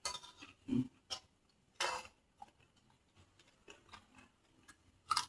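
Eating noises: a handful of separate crisp crunches and clicks as raw vegetables such as cabbage are bitten and chewed, with light clinks of dishes.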